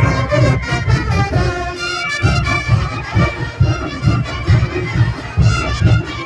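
Brass band playing live: sousaphones, trumpets and drums, with a steady pounding bass beat under the horns.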